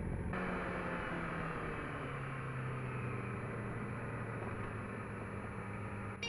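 Sport bike engine running at steady low revs under an even hiss of wind and road noise on the rider's microphone.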